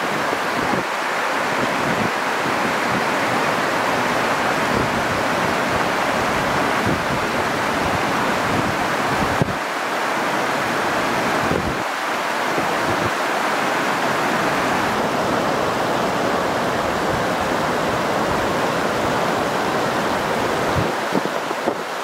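Steady rushing of shallow river water flowing over riffles and a low weir step, with some wind buffeting the microphone.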